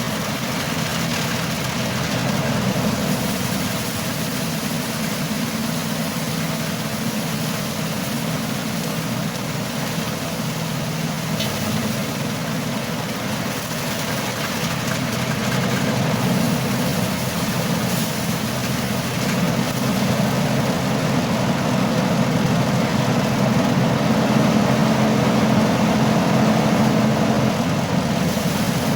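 Engine of a motorised rice thresher running steadily, a steady hum that grows a little louder in the second half.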